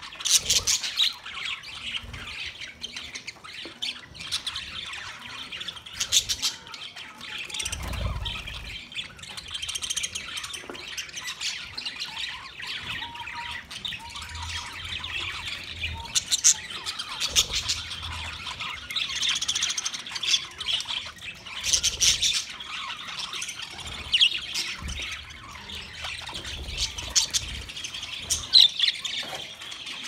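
A large flock of budgerigars chattering continuously, many birds at once, with frequent sharp chirps and squawks.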